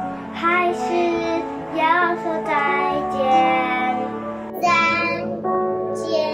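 Music: a children's song, a child's voice singing over instrumental accompaniment.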